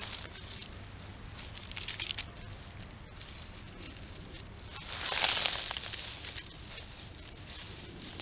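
Dry grass and brush rustling and crackling as someone crouched in it handles it, swelling loudest about five seconds in.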